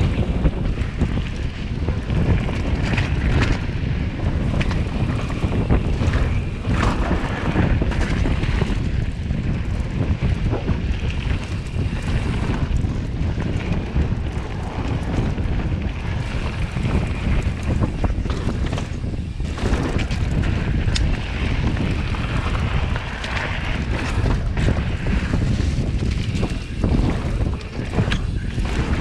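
Wind buffeting the microphone while a Transition Scout mountain bike rides down a dirt trail, with frequent short knocks and rattles from the bike over rough ground.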